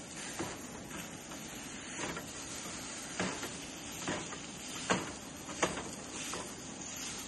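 Food frying in a pan on a camp cooker: a steady sizzle with several sharp clicks and scrapes of a utensil against the pan.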